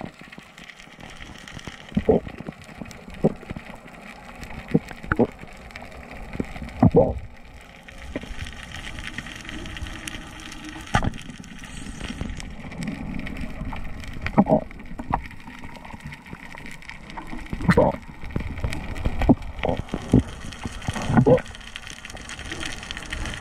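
Underwater sound picked up through a camera's waterproof housing: a steady hiss with a dozen or so irregular knocks and clicks from the diver's gear and the housing.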